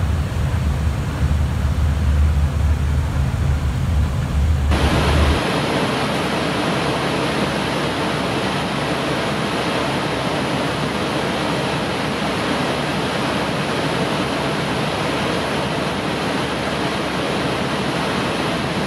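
Steady rushing noise on an airliner's flight deck in cruise. For about the first five seconds it is mostly a deep rumble, then it changes abruptly to an even, full hiss that holds steady.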